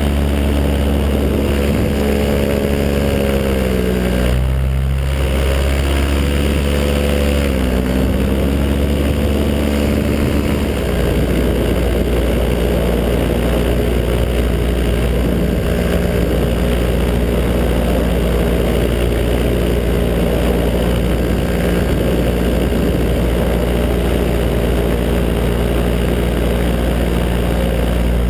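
Paramotor engine and propeller running steadily. Twice in the first eight seconds or so the engine speed drops and comes back up, then it holds a steady pitch.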